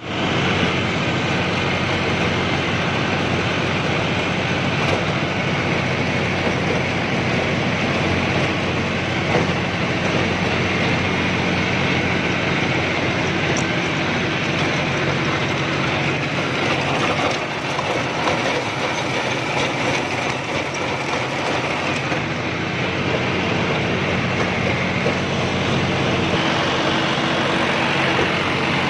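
John Deere 5075E tractor's three-cylinder diesel engine running steadily, heard from the driver's seat, with the rattle of a rotavator working the ground behind it.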